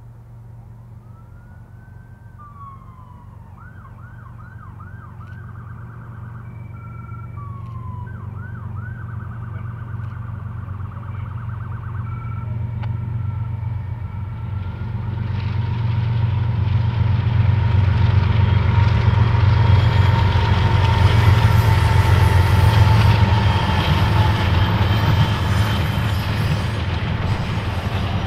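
An emergency vehicle siren wails and then yelps for the first dozen seconds. Under it the low rumble of an approaching diesel train grows steadily louder. In the second half the train goes by loudly with wheel and rail noise.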